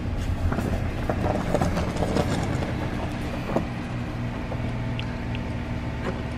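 Car engine running steadily at low speed, with a few knocks and rustles in the first couple of seconds.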